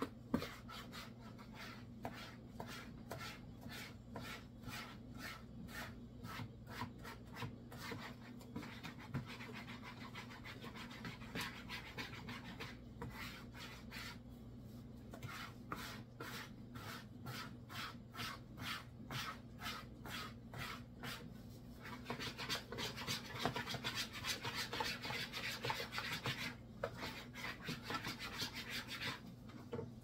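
Dough whisk scraping around a plastic mixing bowl, stirring flour into a wet no-knead bread dough in rhythmic strokes about two a second. In the last third the scraping turns quicker and steadier.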